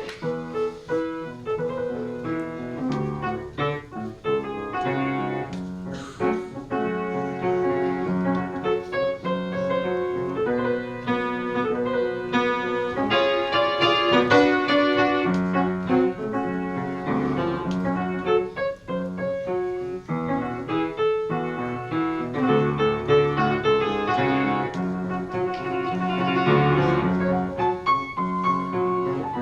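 Solo piano playing a short interlude of chords and melody.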